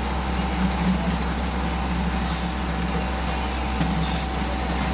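Komatsu PC78US compact excavator's diesel engine running steadily, with a thin steady whine above the low drone.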